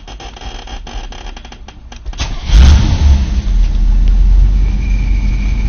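1983 Camaro engine cranked by the starter for about two seconds, catching with a brief rev and settling into a steady idle. Near the end a thin, steady high-pitched squeal comes in over the idle: the clutch bearing squeal that is still there after a new clutch and that goes away when slight pressure is put on the clutch pedal.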